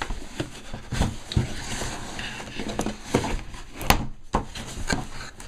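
Cardboard boxes handled: a boxed gift box scraped and shifted inside a cardboard shipping box, with cardboard flaps rustling and a few knocks, the sharpest about four seconds in.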